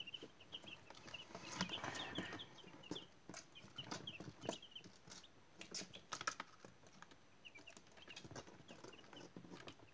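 A brood of young naked-neck chicks peeping in many short, high chirps, with scattered light clicks and taps among them.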